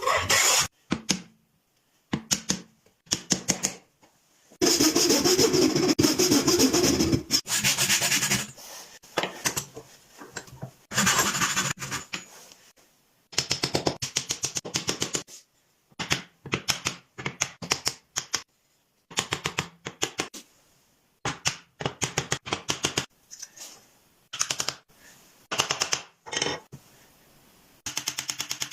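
Rapid, evenly spaced clicking or tapping in bursts a second to a few seconds long, with short pauses between; the longest and loudest burst comes about five seconds in.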